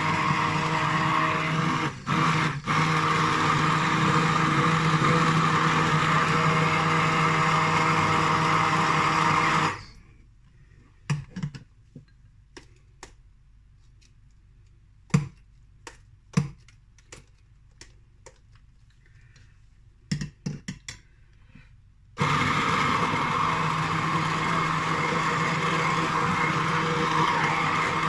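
Bamix hand-held stick blender running steadily while blending a smoothie in a glass jug, with two brief dips a couple of seconds in. It is switched off about ten seconds in, leaving a quiet gap with a few clicks and knocks as the blade is lifted out and cleared of pulp, then started again about twelve seconds later.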